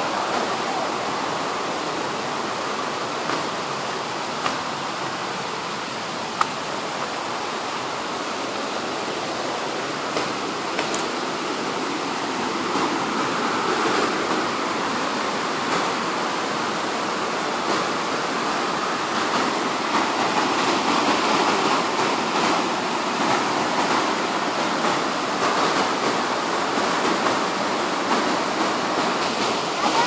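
Steady rush of running water from a nearby waterfall or stream, getting a little louder in the second half, with a single brief click about six seconds in.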